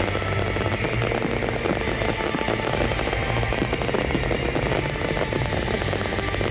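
Aerial fireworks display: a dense, continuous run of bangs and crackling from bursting shells, with no let-up.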